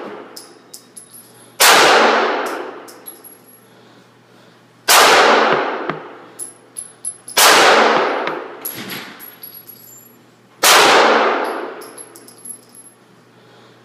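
Four single shots from a Springfield XD 9mm pistol, fired a few seconds apart, each ringing out in the indoor range and dying away over about two seconds. A few light clicks follow each shot.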